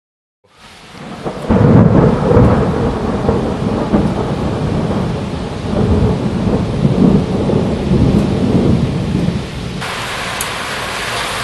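Loud thunder close by: a sudden crack about a second and a half in, then a long low rolling rumble that dies down after about eight seconds, followed by a steady hiss of rain.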